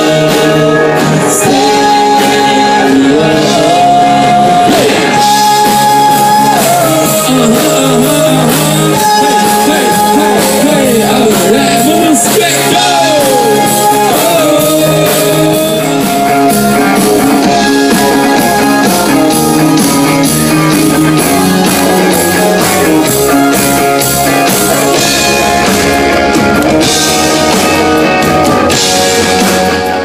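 Live rock band playing through the PA during a sound check: a singer over electric guitars, drums and keyboard, loud and steady throughout.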